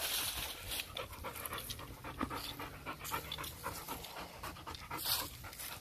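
A Staffordshire bully dog panting with quick, steady breaths, tired after being worked out.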